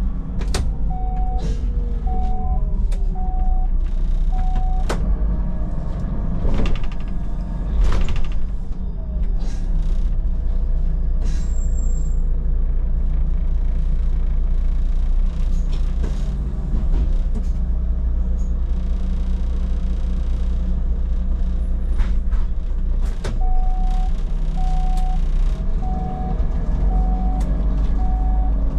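Inside a Solaris Urbino 12 III city bus: the engine runs steadily while the door warning beeper sounds a series of short, evenly spaced beeps near the start and again near the end, with door and air-brake hisses and knocks in between.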